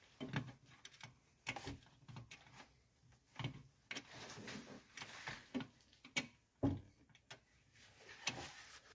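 Faint scattered clicks, knocks and scraping of plastic and metal parts as a headlight bulb and its wiring are pushed by hand into the back of a car's headlight housing; the sharpest knock comes about two-thirds of the way through.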